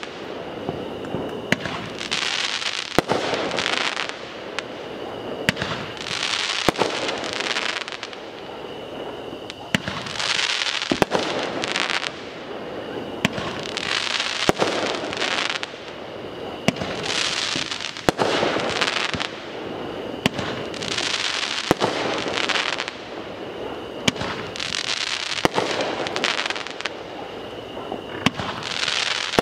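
A fireworks cake firing a long run of shots, one after another: sharp bangs, with a rush of hiss about a second long recurring every three to four seconds.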